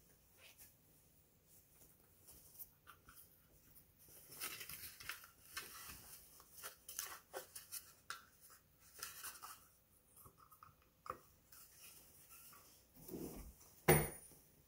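Rustling and scraping of a coat being handled and taken off its hanger, in irregular bursts after a quiet start, with one sharp knock near the end.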